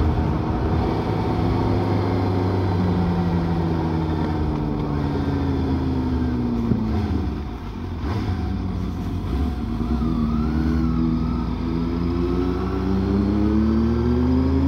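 Suzuki GSX-S750 inline-four motorcycle engine running under way. Its note falls steadily as the bike slows and drops briefly about seven seconds in, then rises steadily as it accelerates away.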